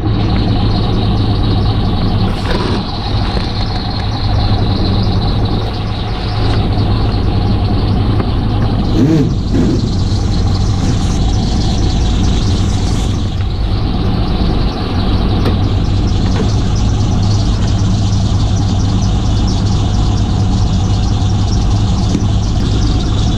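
Heavy diesel engine idling steadily, with a brief knock about nine seconds in.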